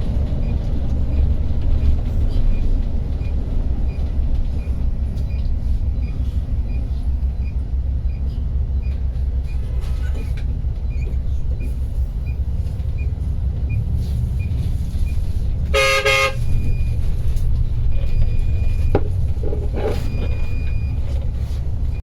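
Steady low engine and road rumble inside a moving coach, with a light regular ticking. About two-thirds of the way through a vehicle horn sounds briefly, followed by a few shorter, higher toots near the end.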